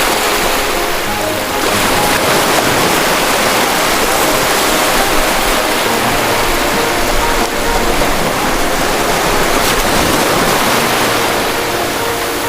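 Ocean surf making a steady rush of breaking and washing waves, with soft background music notes playing over it.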